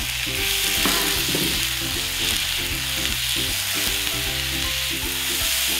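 Chopped tomato with long red chillies and bird's-eye chillies sizzling steadily as they fry in olive oil in a nonstick pan, while a spatula stirs and scrapes through them.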